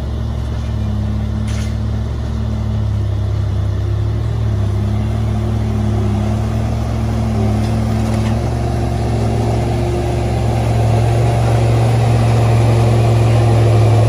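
Tractor engine running steadily under load, a low drone that grows a little louder over the last few seconds.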